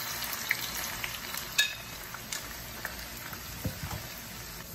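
Cut okra deep-frying in a pan of hot oil: a steady sizzle with scattered crackles and pops, and one sharper click about one and a half seconds in.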